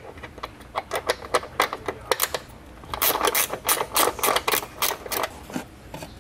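Plastic air intake housing of a BMW E36 M3 clicking and rattling as it is worked loose and lifted out of the engine bay, with a quick run of sharp clicks that gets busier about halfway through.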